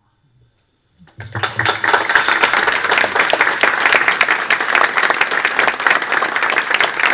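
Audience applause from a seated crowd in a small room, starting suddenly about a second in after a brief hush and continuing as dense, steady clapping.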